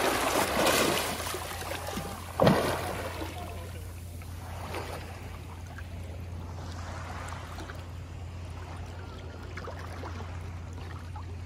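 A swimmer's front-crawl strokes splashing in shallow sea water, with a sharp loud splash about two and a half seconds in. After that the water settles to quiet lapping over a steady low hum.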